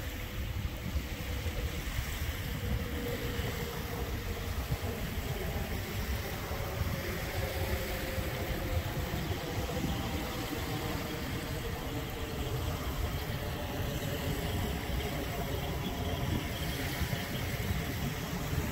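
Wind rumbling on the microphone and small bay waves lapping at the shoreline, with a faint steady motor hum through the middle.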